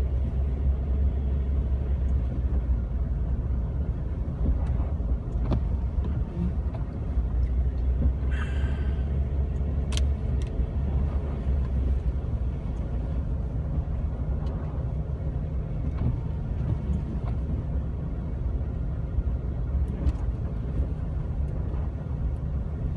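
Jeep Wrangler TJ driving slowly on a snow-covered road: a steady low rumble of engine and tyres, with a few faint clicks and a brief higher squeak about eight seconds in.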